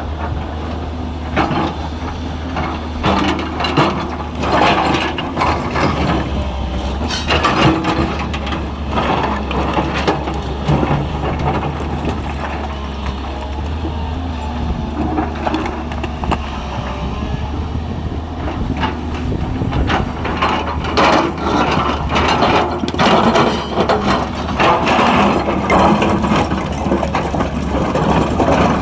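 Excavator diesel engine running steadily under an irregular clatter of rocks knocking and scraping as they are moved and dropped.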